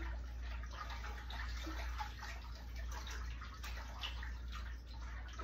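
Broth being stirred in a large stainless steel stockpot: the liquid sloshes steadily, with light irregular scrapes and taps of the spoon against the pot.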